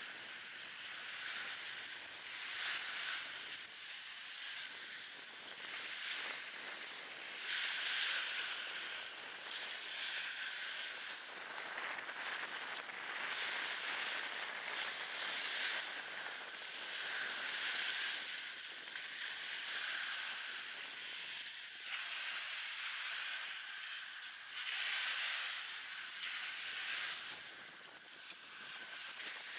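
Small waves breaking and washing up a pebbly shingle beach, the hiss of the wash rising and falling every few seconds, with wind on the microphone. The sound is thin and hissy from noise removal and a high-pass filter.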